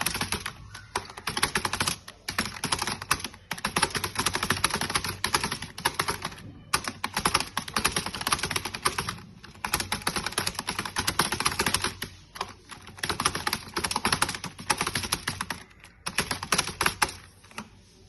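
Computer keyboard typed on at about 100 words per minute: dense runs of rapid key clicks with brief pauses every few seconds, stopping just before the end.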